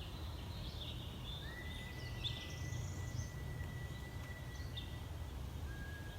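A long, steady, high whistle of unknown origin, held for about four seconds, then a shorter, slightly lower whistle near the end. Faint chirps come in the first half, over a low rumble.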